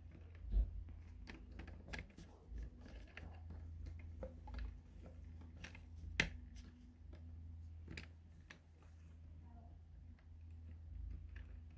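LEGO plastic pieces being handled and pressed together: scattered small clicks and knocks, with one sharper click about six seconds in, over a low steady hum.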